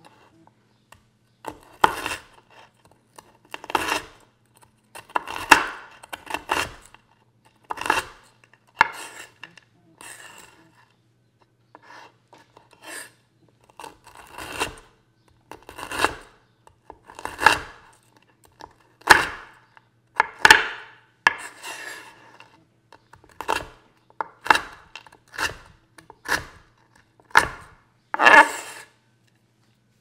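Chef's knife chopping down through stacked Double Stuf Oreo cookies on a wooden cutting board: about twenty separate crunches, roughly one a second, each a short crackle as the cookies break under the blade. The chopping stops just before the end.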